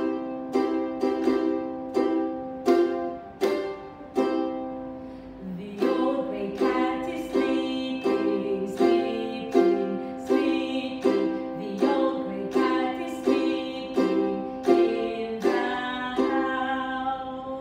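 Ukulele strummed in steady chords, about two strums a second, with a short break about four seconds in.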